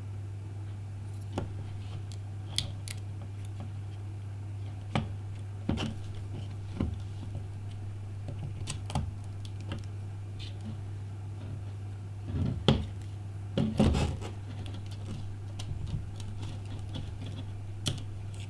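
Scattered light clicks and taps of small tools and iPhone 5 parts being handled while the phone is taken apart, with a busier cluster about twelve to fourteen seconds in. A steady low hum runs underneath.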